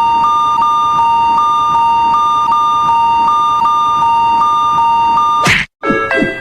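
Electronic two-tone Japanese railroad crossing bell, alternating between two pitches about three times a second. About five and a half seconds in, it ends in a quick sweep and a short break, then gives way to a stepped run of beeping tones.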